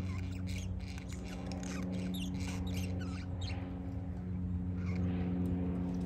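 Budgerigars chirping in a quick string of short, warbling calls through the first half, with a few more later, over a steady low mechanical hum.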